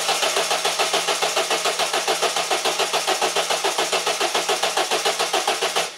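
A Peugeot 1.6 HDi four-cylinder diesel is cranking on the starter motor without firing, because its injectors are unplugged. It makes a fast, even chugging of about seven compression beats a second over a steady hum, and stops abruptly near the end. The engine is being turned over only to build oil pressure and get oil up to the newly fitted turbo before it is started.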